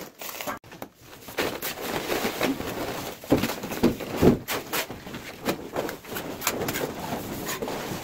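Plastering tools scraping over fresh cement plaster on a wall, in irregular short strokes.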